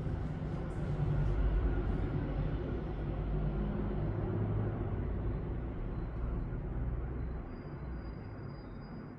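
A low, steady rumble that swells about a second in and eases off near the end, like traffic passing.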